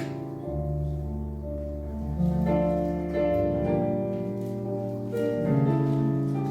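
Electronic keyboard playing a slow hymn: sustained chords over long-held bass notes, the harmony changing about once a second.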